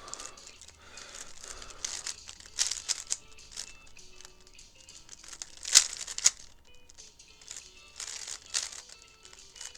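A 3x3 speedcube being turned quickly: flurries of plastic clicking and clacking as the layers snap round, with one sharp loud clack a little past the middle.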